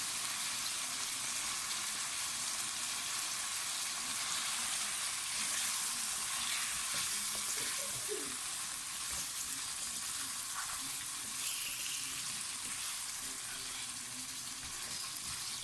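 Chicken pieces and ground spices frying in hot oil in a pan, sizzling steadily while they are stirred and roasted (bhuna).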